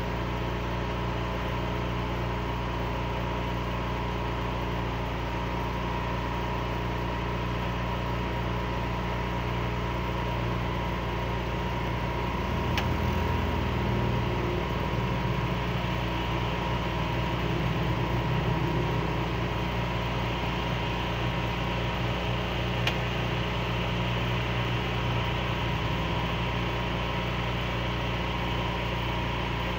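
An engine running steadily at idle, a constant low hum. Two faint clicks come through it, one about halfway and one later on.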